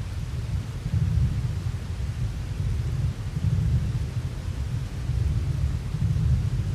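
Thunder rolling in a long, low rumble that swells about a second in and keeps going, over the steady hiss of falling rain.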